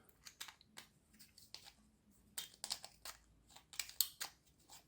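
Scattered light clicks and scrapes from a small plastic 9-LED torch being handled and fitted back together, with a cluster of quick clicks in the middle and another near the end.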